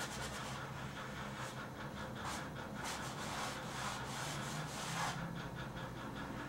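Paintbrush scrubbing and scratching on canvas in quick repeated strokes, over a steady low hum.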